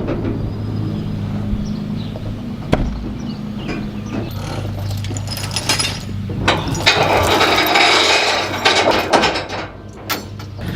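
Diesel engine of a telehandler running steadily, with scattered metallic clanks and a stretch of rattling as the machine sits on the load trailer.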